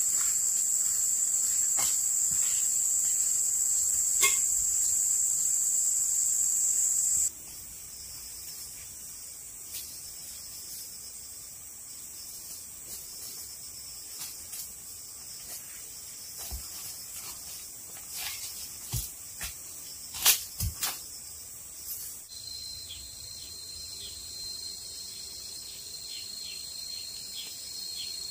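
Insects trilling steadily in a high chorus, typical of crickets. The chorus is loud at first and drops abruptly about seven seconds in, and a lower trill joins about twenty-two seconds in. A few sharp knocks and clicks sound around eighteen to twenty-one seconds, the loudest of them near twenty seconds.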